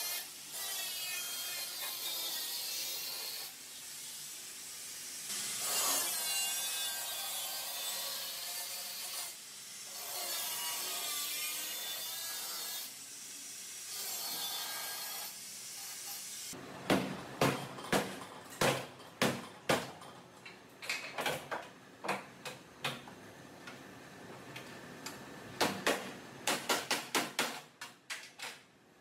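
Angle grinder cutting through a car's sheet-metal rear quarter panel, its pitch wavering with the load in several long passes with short pauses. From about halfway on it gives way to a run of sharp metallic knocks and clanks, some in quick clusters.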